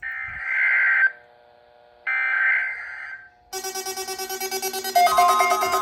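Two bursts of Emergency Alert System SAME header data, each a harsh, screechy warble about a second long, a second apart, marking the start of a NOAA Weather Radio required weekly test. About three and a half seconds in, light background music with a steady plucked pulse begins.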